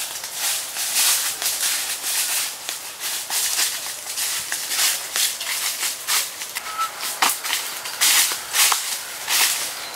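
Footsteps crunching and rustling through dry leaf litter, a quick uneven run of steps.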